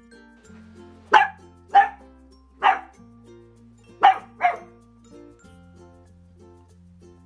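Miniature dachshund puppy barking five times, sharp high yappy barks in two groups, three then two, over quiet background music. Alert barking at the door, the puppy letting everyone know he owns the place.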